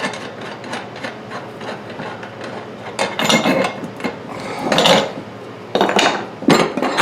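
Clattering, knocking and rubbing as a lawn-tractor tire and its steel wheel are handled and turned over on a workbench, with tools clanking. Heavier bangs come about three, five and six seconds in.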